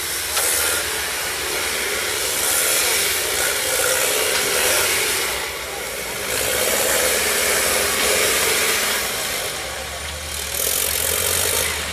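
Engine of a 4x4 rock-crawler prototype running hard under load as it climbs over rocks, rising and falling in revs several times, with a steady hiss throughout.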